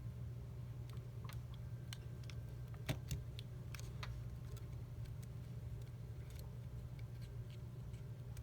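Scattered small clicks and taps of small tools and fingers on a phone's parts and connectors during repair, the sharpest about three seconds in, over a steady low hum.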